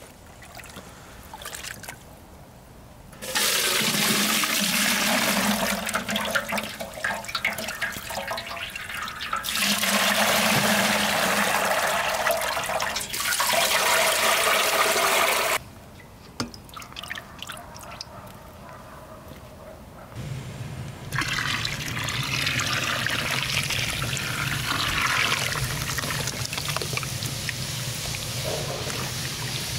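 Running water splashing hard. It starts a few seconds in and cuts off suddenly about halfway. It starts again a few seconds later with a low steady hum underneath.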